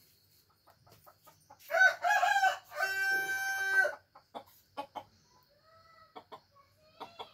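Rooster crowing once, about two seconds long: a wavering opening, then a long held final note. Short clucks follow.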